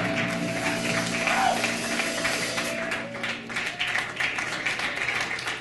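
Jazz quintet of saxophones, piano, upright bass and drums holding the final chord of the tune. The chord dies away about three seconds in, and scattered audience clapping begins.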